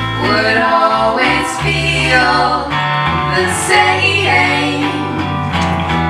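Live band playing a song: women's voices singing over electric bass and guitar.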